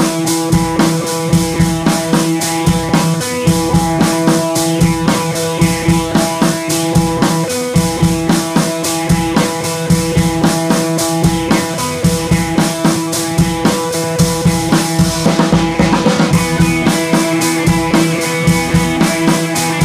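Background music with a steady drum beat over held instrumental tones, with a brief swelling whoosh about two-thirds of the way through.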